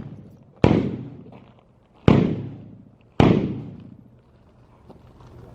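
Three gunshots, about half a second in, near two seconds and about a second after that, each sharp crack fading away in a long echoing tail.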